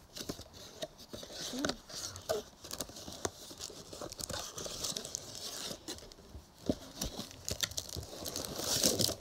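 Cardboard box and wrapped baseball card packs being handled: paper and plastic crinkling and rustling, with many light clicks and taps.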